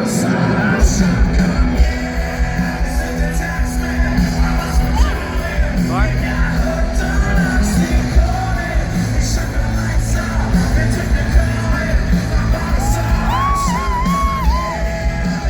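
Rock band playing live, with drums and bass kicking in about a second in under a sung lead vocal and shouts.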